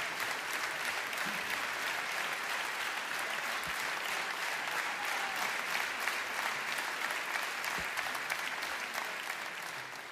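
A large audience applauding, the clapping dense and even, thinning out slightly near the end.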